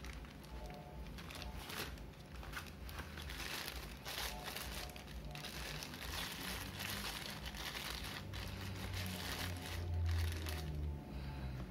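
Thin clear plastic food bag crinkling and rustling as hands open it and fold it back, with irregular crackles throughout. A low steady hum runs underneath and swells near the end.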